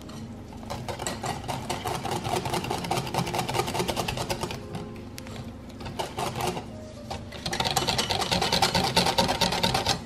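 Wire whisk beating thick yogurt cake batter in a glass bowl by hand: a fast, even rattle of the wires tapping against the glass. It grows louder and brighter in the last couple of seconds as the whisking speeds up.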